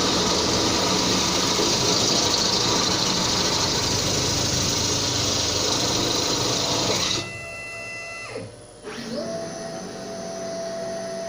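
CNC router spindle drilling thin galvanised steel sheet with a step drill bit: a loud, steady mix of motor whine and cutting noise. About seven seconds in the noise drops away and the whine falls in pitch, then climbs back up to a steady, high tone.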